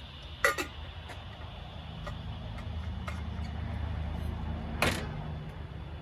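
Two sharp knocks, a quick double one about half a second in and a single one near the end, over a low rumble that swells and then eases.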